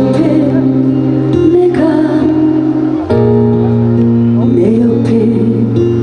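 A woman singing a Korean trot song live into a microphone over an instrumental accompaniment of sustained chords, the harmony changing about halfway through.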